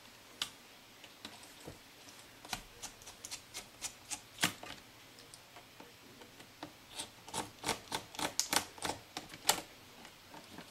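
Scattered sharp clicks and taps, in two flurries, of a small Phillips screwdriver and hands working the screen-mounting screws of a laptop's plastic display frame.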